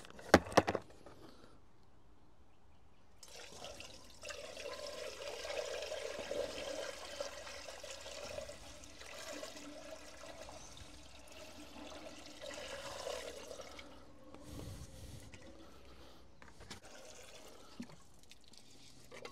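Water poured from a bucket through a metal funnel into the cooling system of a Caterpillar 910 wheel loader, splashing and gurgling for about ten seconds before it tails off. There are two sharp knocks just after the start.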